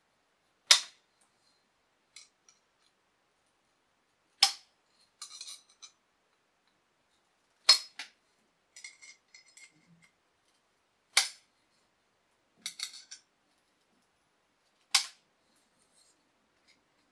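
Tin snips cutting through a thin metal strip: five sharp snips, about one every three and a half seconds, with quieter small metallic clicks and rattles after each cut.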